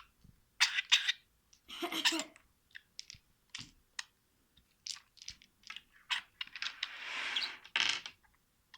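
Pet budgerigar chattering: an irregular run of short, scratchy chirps and clicks, with a longer raspy hiss about seven seconds in.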